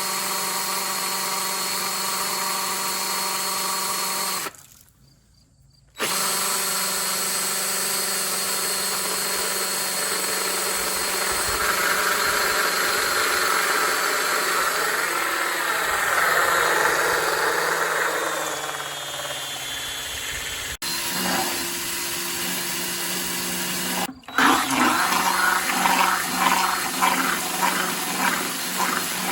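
Cordless drill running steadily with a motor whine as it drives a drill pump moving water out of a bucket, stopping for a moment about five seconds in and briefly again near the end. After the second stop the sound turns choppy, with rapid uneven pulsing.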